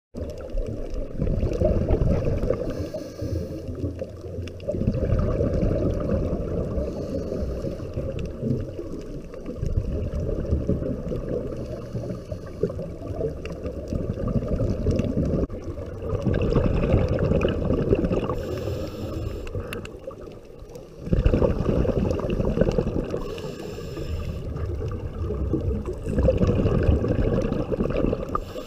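Scuba divers' exhaled bubbles gurgling out of their regulators, in repeated surges a few seconds apart with each breath, muffled through an underwater camera housing.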